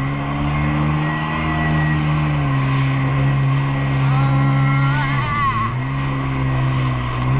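Jet ski engine running steadily at speed over the hiss of wind and spray, its pitch dipping briefly about five seconds in before picking up again.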